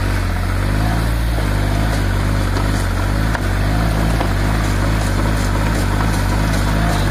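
John Deere tractor engine running steadily at a constant speed, with no revving.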